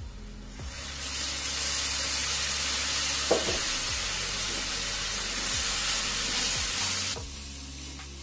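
Water poured into a hot wok of frying onions, spices and beef hits the oil and sizzles loudly, a steady hiss that stops abruptly near the end. A single knock about three seconds in.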